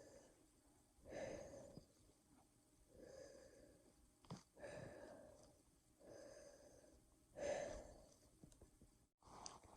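A person breathing slowly and audibly close to the microphone, deliberately exaggerated breaths for a no-talking sleep-aid recording. There are about six breaths, one every second and a half or so, the strongest about three-quarters of the way through, with a faint click near the middle and a brief dropout to silence just before the end.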